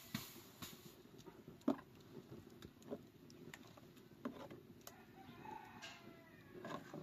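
Faint scattered clicks and knocks, with a short animal call about five and a half seconds in.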